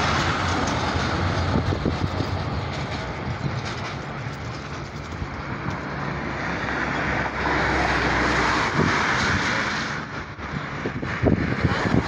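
Steady rumble of an airplane passing overhead, mixed with general city traffic noise.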